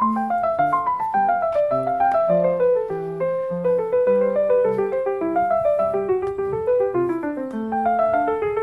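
Background piano music: a flowing melody of quick notes over slower bass notes.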